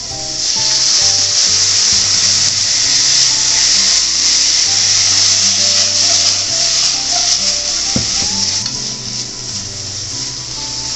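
Soy sauce sizzling as it hits a hot frying pan of stir-fried bean sprouts, green pepper and carrot. The sizzle swells just after the start, stays loud for several seconds, then dies down in the second half.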